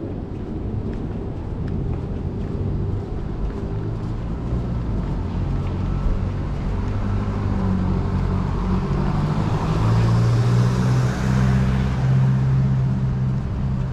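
Street traffic: a motor vehicle's engine running with a low hum, growing louder as it approaches and loudest about ten to twelve seconds in, with tyre hiss swelling and fading as it passes.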